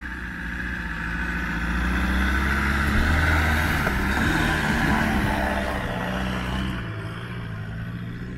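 Land Rover Discovery 1's engine running steadily as it drives through mud close past, growing louder to a peak about three to five seconds in and then fading as it pulls away up the bank.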